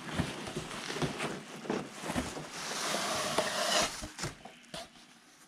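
Bubble wrap rustling and crinkling as a wrapped foam wing is pulled out of a cardboard box. The rustle thins out about four seconds in, leaving a few light clicks.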